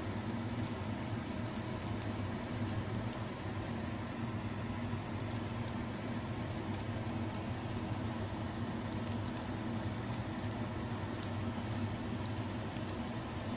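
A steady low hum with faint, scattered crackles from rice and Chinese sausage sizzling in a clay pot on the stove.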